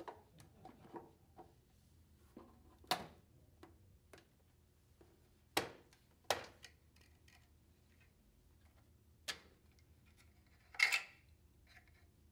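Handling noise as the generator unit of a Concept2 Model D rowing machine is pulled from its housing and its wire is drawn out through the monitor arm: a handful of scattered sharp clicks and knocks of hard plastic with soft rustling between them, the loudest about three seconds in and near the end.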